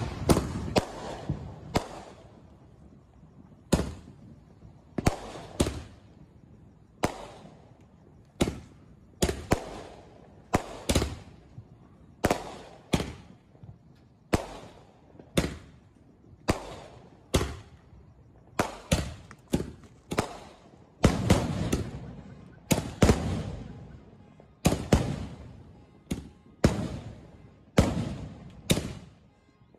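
A 25-shot firework rack firing its shots one after another: a steady run of sharp bangs, about one or two a second, each fading away in an echoing tail.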